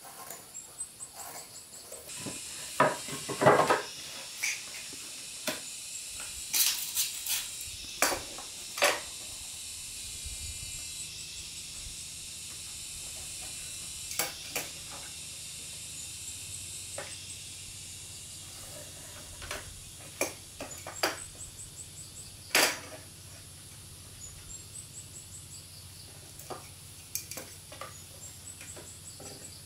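Scattered sharp knocks and clinks of objects being handled, loudest and most frequent in the first nine seconds, over a steady high-pitched background hiss. A low steady hum comes in about ten seconds in.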